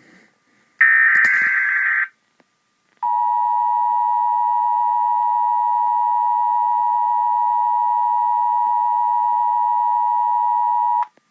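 Emergency Alert System broadcast: a burst of SAME header data about a second in, then, after a short gap, the steady EAS two-tone attention signal, held for about eight seconds before it cuts off suddenly.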